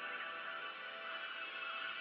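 Background music of layered, sustained tones.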